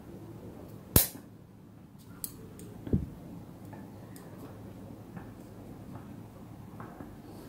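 Pruning scissors snipping a rosemary branch: one sharp click about a second in, a lighter click a little later, then a dull knock about three seconds in.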